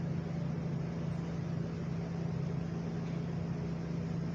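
Steady low mechanical hum with one constant low tone over a faint even hiss, unchanging throughout.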